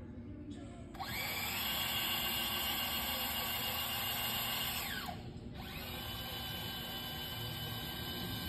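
Electric motor of a rail-mounted concrete wall saw, running free with no blade fitted. It spins up with a rising whine about a second in and runs steadily. About five seconds in it winds down, then it spins straight back up to a steady whine.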